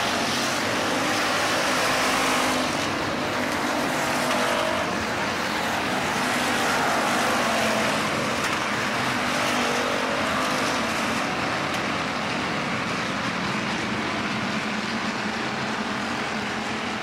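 A field of IMCA Hobby Stock race cars running at racing speed, several engines at once, their sound rising and falling as the cars come past.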